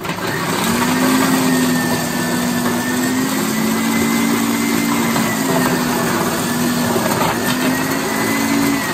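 Kenwood kitchen machine's motor switched on and running with its coarse grater attachment fitted for shredding carrots: a loud, steady whirring hum with a faint whine above it. The pitch sags slightly for a couple of seconds past the middle, then recovers.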